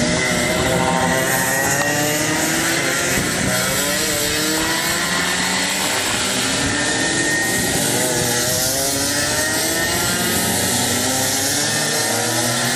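Several racing kart engines revving up and down as the karts pass around the circuit. Their rising and falling notes overlap throughout.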